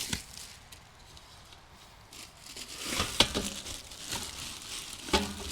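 Packaging crinkling and rustling while a smokeless fire pit is unpacked, with a few short knocks and clicks from its parts being handled, loudest about three seconds in.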